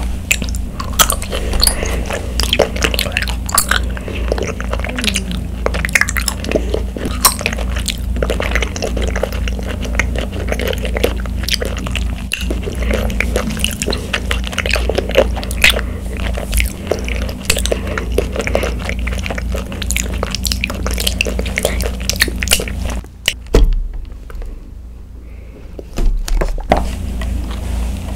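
Close-miked chewing of chewy tapioca pearls from bubble tea: a dense run of small, wet clicks and squishes, over a steady low hum. There is a short pause near the end.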